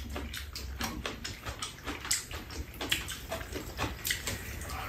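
Close-up eating sounds from two people having soup: irregular wet slurping and chewing, with light clicks of spoons and chopsticks against bowls.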